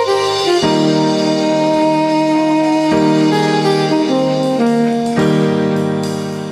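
Live band playing an instrumental passage: a melody line over held keyboard chords, easing off in level near the end.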